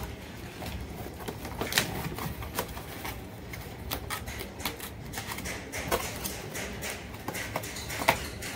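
Small cardboard boxes being handled, flaps folded and boxes set down on the counter: a run of irregular light taps, clicks and cardboard rustles.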